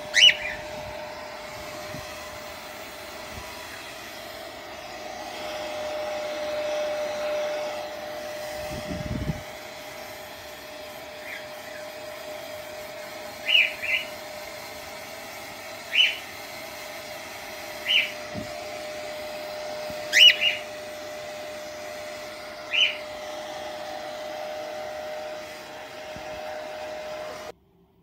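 Hair dryer blowing steadily with a constant hum, drying a cockatiel after its bath, while the cockatiel gives short chirps: one right at the start and several more through the second half.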